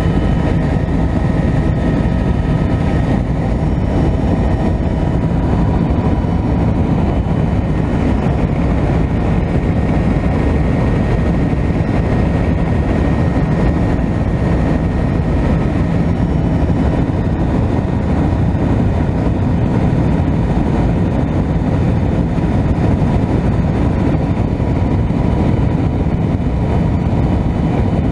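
Helicopter engine and rotor noise heard from inside the cabin: a loud, steady drone with a faint steady whine above it.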